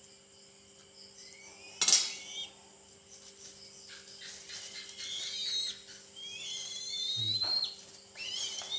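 Young eagle giving high, rising whistled calls several times in a row, each about a second long, as it is fed. A single sharp click about two seconds in is the loudest sound.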